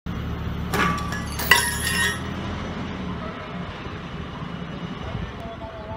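Two sharp metallic clanks with a brief ringing tail, about a second in and again half a second later, as steel hardware lets go in a sudden column-removal test on a concrete building frame. A low steady hum underneath cuts out shortly after.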